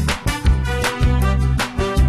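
Background music with a steady drum beat over a low bass line.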